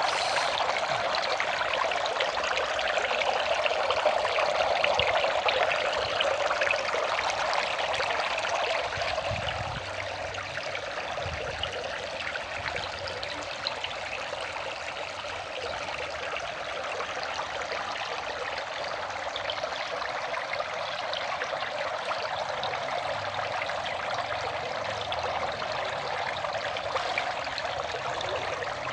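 Water from a small fish-pond waterfall pouring and splashing steadily into the pond, a little louder for the first nine seconds or so.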